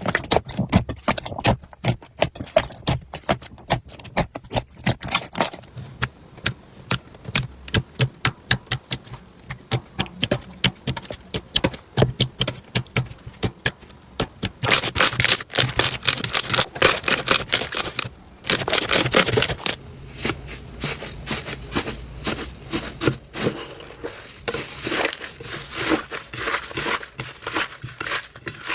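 Slime being squeezed, poked and stretched by hand, a fast run of crackles and pops that grows denser and louder about halfway through, then eases off.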